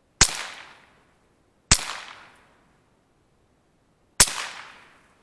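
.22 LR rifle firing three shots of 40-grain hollow-point ammunition: a sharp crack that dies away over most of a second, a second shot about a second and a half later, and a third about two and a half seconds after that.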